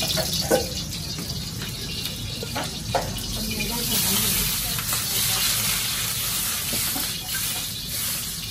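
Crispy pork belly pieces sizzling in a carbon-steel wok over a gas burner, with a sharp metal clank about half a second in and another about three seconds in. The sizzling grows louder about four seconds in as green vegetables are tipped into the wok from a wire strainer, over a steady low rumble.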